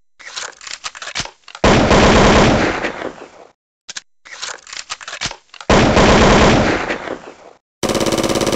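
Gunfire: a few scattered shots, then a long burst of rapid fire lasting almost two seconds. The same sequence of shots and burst comes again about halfway through.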